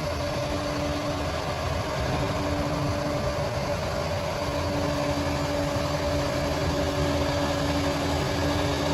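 Bulldozer diesel engine running steadily, with a constant whine over the rumble.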